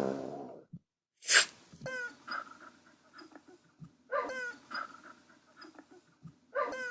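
Canine whimpering: short whines that drop in pitch, coming in three clusters a couple of seconds apart, with a sharp noisy burst about a second in.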